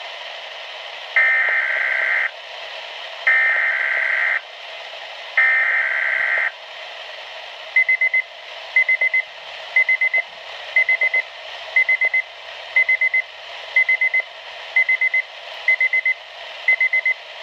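Weatheradio alert signal: the SAME digital header sent three times as three one-second bursts of warbling data tone, followed by a high pulsing alert tone of four quick beeps about once a second, heralding a severe weather warning.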